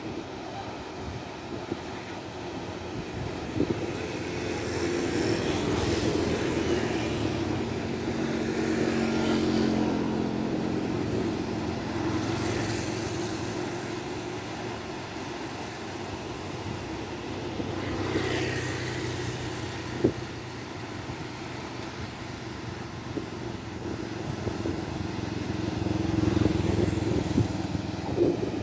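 Fishing boat engines running as boats pass one after another, the sound swelling and fading several times. One sharp click about two-thirds of the way through.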